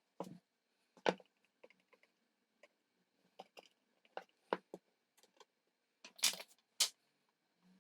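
Scattered light clicks and taps of small electronic parts and a circuit board being handled on a workbench, with two louder knocks near the end.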